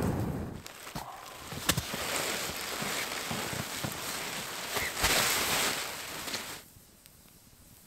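Wood campfire crackling, with a hiss and sharp pops; about two-thirds of the way through it cuts off suddenly to a much quieter background with only faint ticks.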